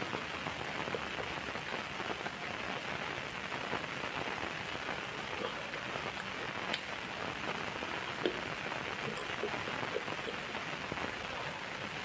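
Steady rain-like hiss, like rain falling on a surface, with scattered faint drip-like clicks.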